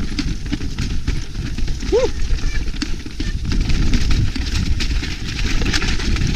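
Mountain bike rattling and rumbling down a rough, snowy track, with many small knocks from the bike and tyres over the ruts. One brief rising-and-falling tone comes about two seconds in.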